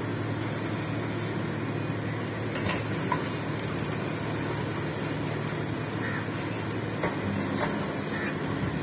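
Heavy earthmoving machine's engine running steadily at a low, even hum, with a few faint short clicks near the middle and toward the end.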